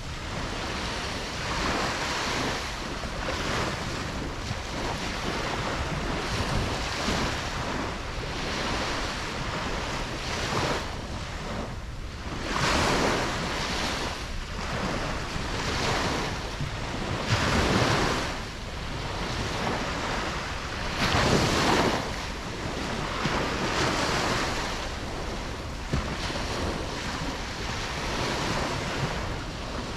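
Ocean waves breaking and washing on a beach, a steady rush of surf that swells and falls every second or two, with a few louder breakers, and wind buffeting the microphone.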